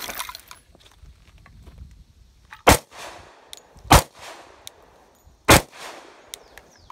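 Glock 29 pistol firing three shots, about a second and a half apart. Each is a sharp crack followed by a short echo.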